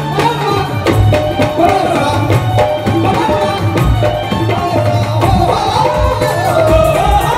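Live Punjabi devotional band music played loud through a PA: drum and percussion strikes keep a steady beat under a wavering melody line.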